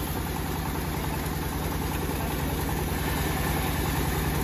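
Engine of a home-built bandsaw sawmill running steadily with an even low beat, growing slightly louder over the few seconds.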